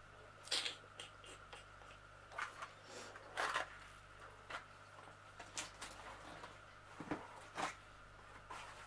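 Scattered small knocks, taps and rustles of objects being picked up and moved by hand, with a faint steady hum underneath.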